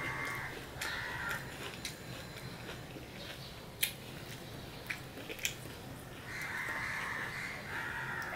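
Crisp, red-skinned apple slices being bitten and chewed close to the microphone, with sharp crunches now and then. A higher, drawn-out sound comes through briefly about a second in and again for the last two seconds.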